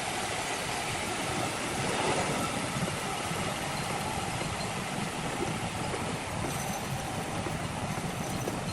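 Sawmill machinery running steadily, a continuous engine-like drone with no distinct strokes or changes in pitch.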